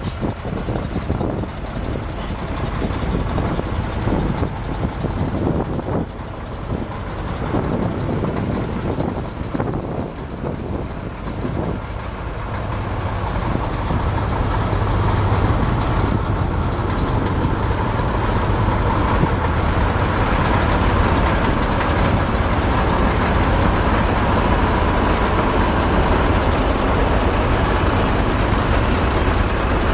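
Volvo FE6 5.5-litre inline-six turbo diesel truck engine running at idle, a steady low diesel rumble. About 12 seconds in, it gets louder and a deeper hum comes in.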